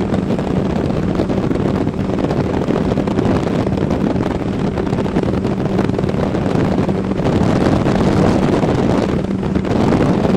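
A 50 hp Johnson outboard motor holds a steady drone as the speedboat runs across open water. Wind buffets the microphone throughout.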